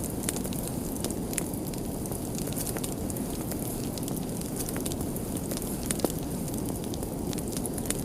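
Fire crackling: scattered pops and snaps over a steady low rumble of burning, with one louder pop about six seconds in.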